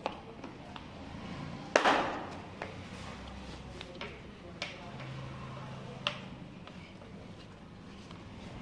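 Hand-tool and part clicks and knocks as hands work in a motorcycle's battery compartment, with a louder clatter about two seconds in and single sharp clicks after it.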